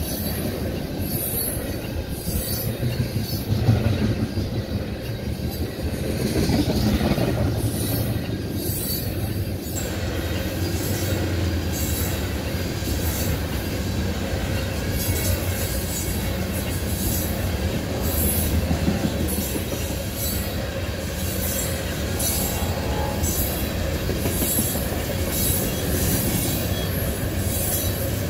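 Freight train of tank cars rolling past at close range: a steady, loud rumble of steel wheels on rail, with repeated sharp clicks as the wheelsets pass over the rail joints.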